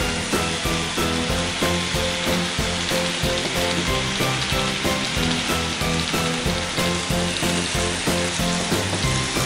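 N gauge model trains running along the layout track, a steady rattling hiss of wheels and motors, over background music with a steady beat.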